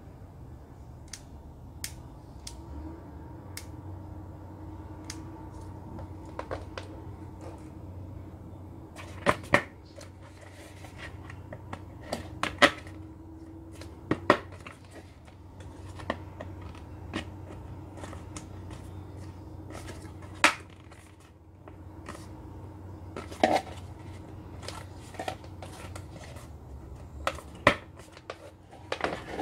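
Irregular plastic clicks, taps and knocks as the plastic shade of an IKEA TVÄRS table lamp is handled and clipped onto the lamp's plastic frame, a handful of them sharp and loud, over a faint steady hum.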